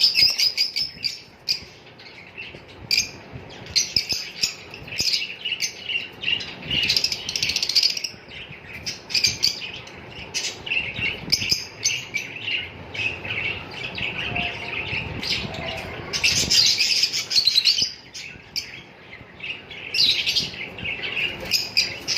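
A group of pet lovebirds chirping and chattering, many quick high-pitched calls overlapping in loud clusters that keep coming.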